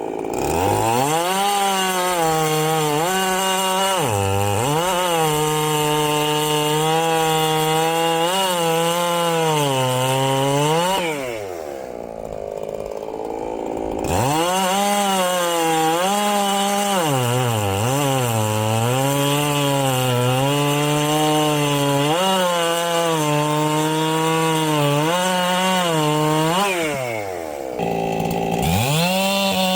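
Ported Echo CS-7310 two-stroke chainsaw running at full throttle through logs, its engine pitch dipping and recovering as the chain bites. It drops back to idle twice, about eleven seconds in and again near the end, then revs up again.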